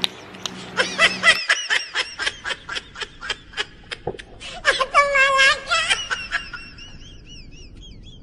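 Laughter: a quick, even run of 'ha-ha' laughs lasting about four seconds, then a higher, drawn-out laugh, trailing off into faint high squeaks.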